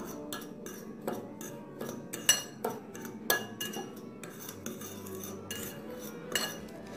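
Spoon stirring a dry flour mixture in a glass bowl, tapping and scraping against the glass in repeated sharp clinks, about two to three a second, a few of them louder in the middle.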